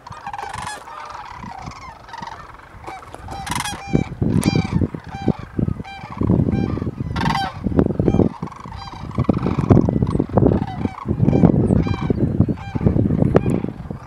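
Sandhill cranes calling in flight: many rolling, rattling bugle calls, one after another and several overlapping. From about four seconds in, a loud low rumble comes and goes under the calls.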